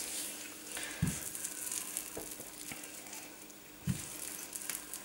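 Wooden rolling pin rolled over a thin sheet of dough on a countertop: a fine crackly rubbing, with two soft knocks of the pin, about a second in and near the end.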